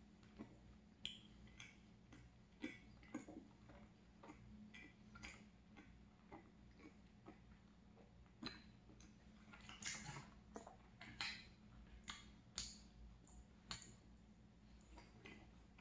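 Faint wet mouth clicks and smacks of a person chewing a soft filled mini donut with the mouth closed: short irregular clicks about once a second, over a low steady hum.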